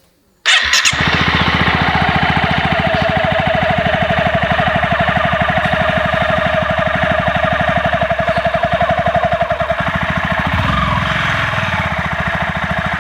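Honda CBR motorcycle engine running close by, a steady rapid train of firing pulses that comes in suddenly about half a second in.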